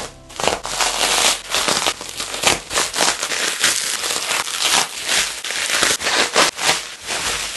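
Plastic bubble wrap and a clear plastic bag crinkling as they are pulled open and handled: a dense, irregular run of sharp crackles.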